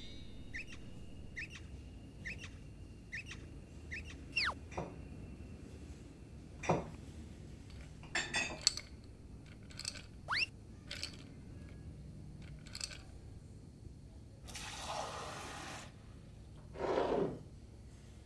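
Cartoon sound effects for making an iced drink: a run of short rising chirps about once a second, two long falling whistle-like tones, ice cubes clinking into glasses, and then liquid pouring twice near the end.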